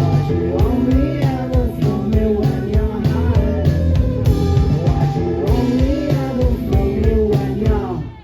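Live rock band playing, with electric guitar, bass and drum kit, with a sung line held over the top; the music cuts off near the end.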